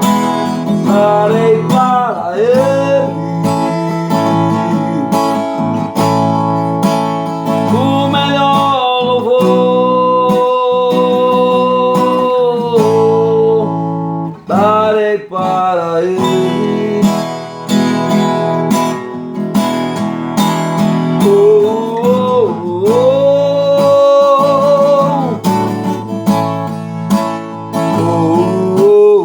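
Portuguese-language gospel worship song: acoustic guitar strumming chords under a sliding sung melody with long held notes.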